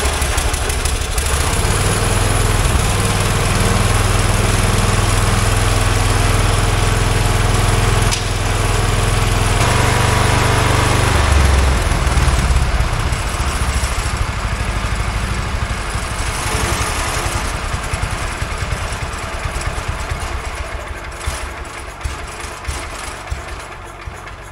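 Wheel Horse 416 garden tractor's engine running just after starting, being run to warm the oil before an oil change. It sinks gradually in level over the second half and shuts off at the very end.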